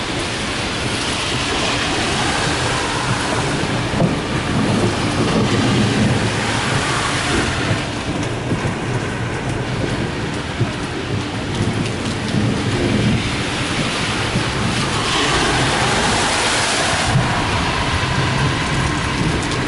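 Steady hiss of heavy rain on a flooded street, with traffic driving through standing water. A low rumble swells about four seconds in and again around fifteen seconds in.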